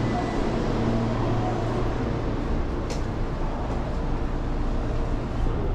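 Steady low hum and noise of an electric commuter train standing at a platform with its doors open, with a brief high tick about three seconds in.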